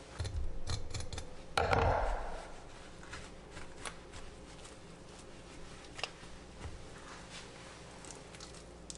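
Knife filleting a tautog on a bamboo cutting board: a run of cuts and knocks against the board in the first two seconds, with one louder scraping rush, then only occasional small clicks as the fish is handled.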